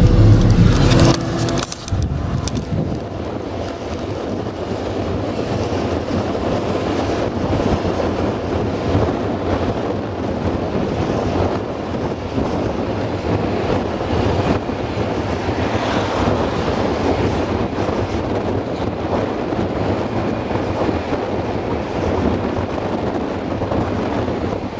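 Engine of a farm vehicle running at a steady speed, with wind noise on the microphone; it is louder for the first second or two.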